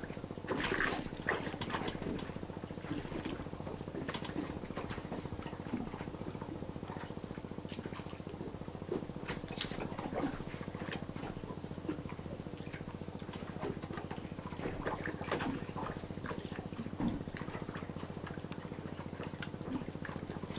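Fishing boat's engine idling with a steady low hum, under many scattered light clicks and taps.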